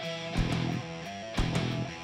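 Rock band playing live, led by a strummed sunburst Les Paul-style electric guitar, with two loud hits from the kit and band about half a second and a second and a half in.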